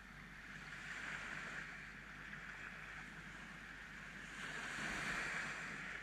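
Small sea waves breaking and washing up a sandy beach: a steady hiss of surf that swells louder about four and a half seconds in as a wave runs up the sand.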